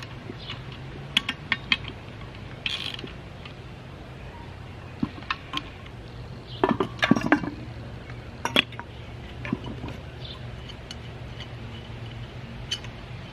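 Metal clinks and knocks of cast-iron boiler water-level control parts and hand tools being handled during reassembly: scattered sharp clinks, with a quick cluster about seven seconds in.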